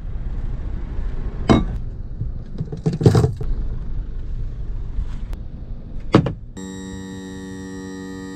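Road rumble inside a moving car's cabin, with a few sharp thumps and knocks, the loudest about three seconds in. Near the end the rumble gives way to a steady held chord of many pitches.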